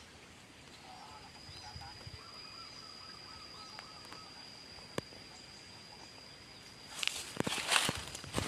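Rural outdoor ambience: a steady high-pitched insect drone with faint bird calls, then from about seven seconds in, loud crunching and rustling footsteps through dry vegetation.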